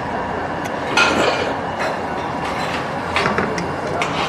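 Eating sounds: noodles and broth being slurped from a bowl about a second in, then a few short clinks of a metal spoon against a stainless steel bowl, over steady background noise.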